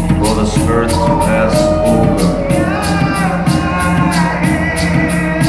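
Recorded music with a steady beat and a singing voice, played back through Viva Audio horn loudspeakers.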